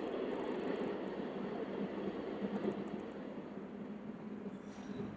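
A steady noise soundtrack playing from an R16 portable sound machine's speaker, growing gradually quieter as its volume is turned down.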